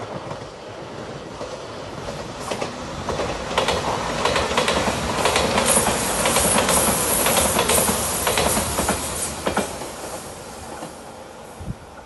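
Five-car Shiokaze limited express, a JR Shikoku 8000 series electric train, passing by, its wheels clattering over the rail joints. The sound grows as it approaches, is loudest about halfway through, and fades away near the end.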